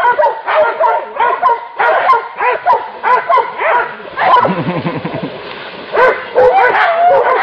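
Dogs barking and yelping rapidly, about three or four sharp barks a second, baying at a pig. A lower-pitched call breaks in a little past halfway, then the barking picks up again.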